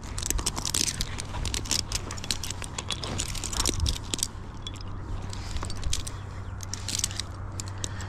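Tree-climbing hardware clinking and rattling, with rope being handled: a quick run of sharp clicks and small metallic jangles over a steady low hum.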